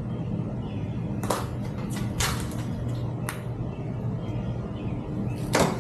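Scattered short rustles and clicks of protective foam packing being pulled off a bicycle frame, with a louder one near the end, over a steady low hum.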